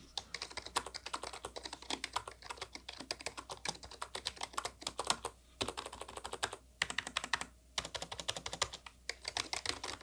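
Fast typing on a Roccat Magma Mini, a 60% keyboard with membrane switches: a quiet, rapid clatter of keystrokes with a few short breaks in the second half.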